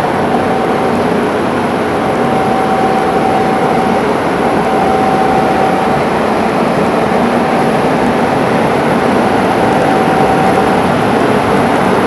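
Flat glass washing machine running: a loud, even mechanical noise with a steady whine that drops in and out several times.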